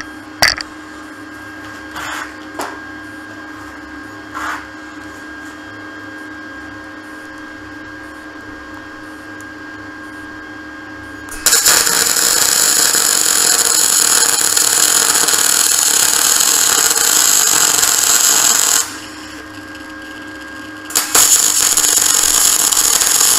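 MIG welder arc crackling steadily as a flange is seam welded onto a steel pipe: one run of about seven seconds starting about halfway through, a short pause, then a second run near the end. Before the welding starts there is only a low hum and a few light knocks.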